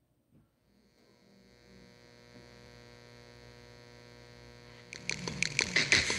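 Electronic track played on the Electrum drum machine/sampler app: a steady droning chord fades in, then a drum beat of rapid hits starts about five seconds in, much louder.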